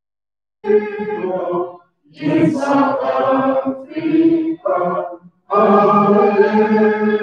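Voices singing together in long held phrases, with brief gaps of silence between them.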